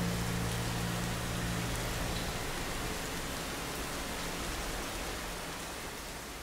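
Steady hiss of rainfall, gradually fading out. The last low, sustained notes of reverb-heavy music die away in the first two seconds.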